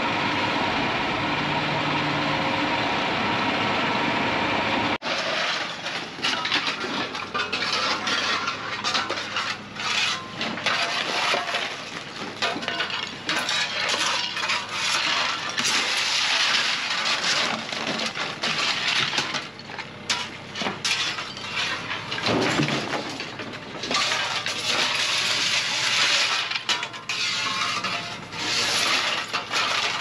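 For the first five seconds a roll-off truck's engine runs steadily. It cuts off abruptly, and demolition debris (broken wood and scrap) clatters, cracks and clinks without pause as it is thrown and dumped into a steel roll-off dumpster.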